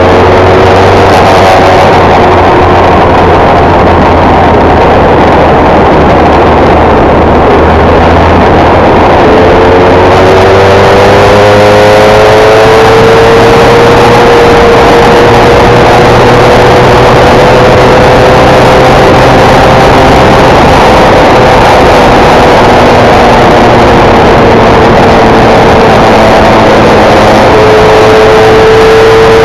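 Formula 1600 race car engine running hard at high revs over a steady rushing noise. The revs climb from about nine seconds in, hold high for several seconds, ease down slowly, then drop and climb again near the end.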